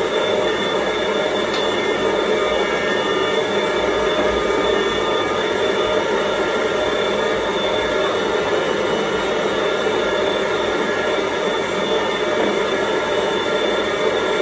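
Electric stand mixer running a meat-mincer attachment at a steady pitch as raw marinated turkey is pushed through and minced a second time, for a smooth seekh kebab mince.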